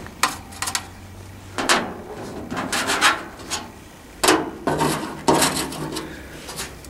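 A series of short scraping and rubbing noises, about seven of them spread through a few seconds.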